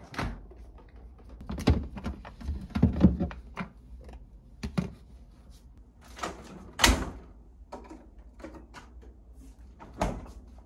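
The doors of a four-door refrigerator are pulled open and swung shut, with a string of knocks and clunks, the loudest about seven seconds in and another near the end.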